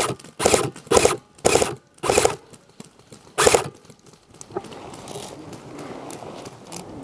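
Airsoft electric rifle firing a string of short full-auto bursts, about two a second, then one more burst after a pause about three and a half seconds in. After that there is only a steady rustle.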